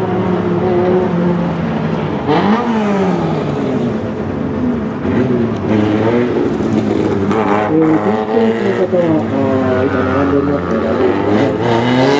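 Fournier Marcadier Barquette FM01 race car's engine revving up and down again and again, its pitch rising and falling as it accelerates and slows between gymkhana cones.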